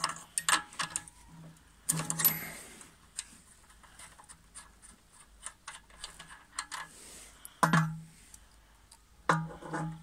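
Clicks and knocks of metal on a Howard 200 rotavator's small petrol engine while its spark plug is tested for a spark, with louder clunks about two seconds in, near eight seconds and near the end.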